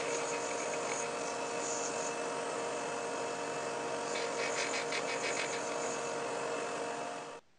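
Bench belt sander running steadily while a small plywood pulley is held against the belt to sand a crown onto it; the sound cuts off abruptly near the end.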